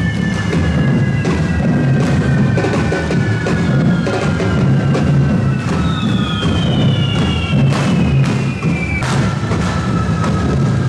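Correfoc drum band beating a steady, loud rhythm under several long whistles that fall slowly in pitch from handheld whistling fireworks. Sharp cracks from the fireworks cut through, the strongest near the end.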